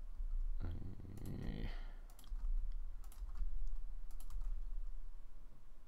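Computer keyboard keystrokes and mouse clicks tapping out 3D-modelling shortcuts (extrude, axis lock, scale), irregular single clicks over a steady low hum.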